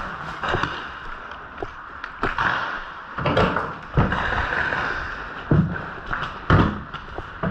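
Paintball markers firing single shots: sharp thuds spaced irregularly, roughly one a second.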